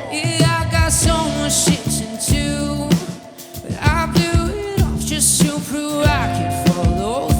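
Live band playing a rock song, with drum kit and guitar under a melodic vocal line; the band drops back briefly about halfway through.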